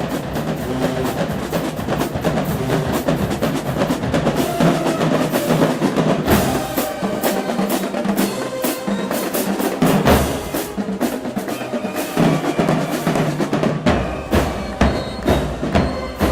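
Marching band drumline playing a cadence on snare and bass drums, with evenly spaced heavy beats in the last couple of seconds.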